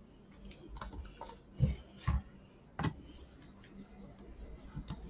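L-shaped box wrench being worked on the nut of a blower's fan: a scattered series of light metallic clicks and knocks, three stronger ones between about one and a half and three seconds in.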